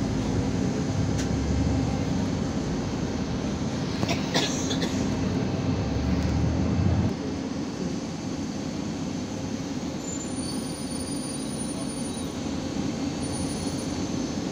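Interior noise of a moving Irisbus Citelis 12 m city bus: a low engine and drivetrain rumble with a steady whine over road noise, and a brief rattle about four seconds in. The rumble drops off about halfway through.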